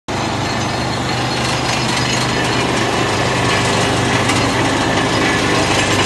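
Sawdust-making machine (wood log crusher) running with no load: its motor and cutter rotor spin with a steady, loud hum before a log reaches the blades.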